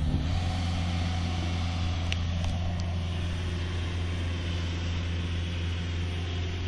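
Steady low engine drone from a ride-on fairway reel mower running, with a golf cart driving alongside on the grass.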